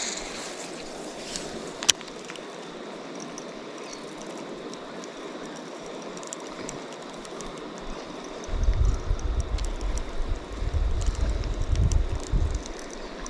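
Wind buffeting the microphone in irregular low rumbling gusts from about eight seconds in, over a steady hiss; a single sharp click about two seconds in.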